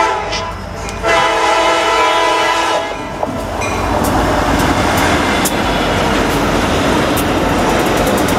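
EMD SD60M locomotive horn sounding for a grade crossing: a blast that breaks off briefly, then a long blast that stops about three seconds in. The lead diesel locomotives then pass close by with a heavy rumble of engines and wheels, and a few sharp clicks from the wheels over the rail.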